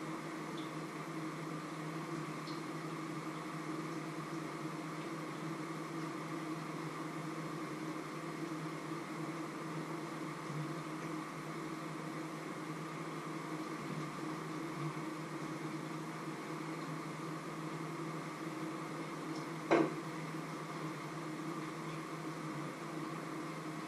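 Steady mechanical hum of a kitchen appliance or fan running, with one sharp knock about twenty seconds in, like a pot or utensil being set down.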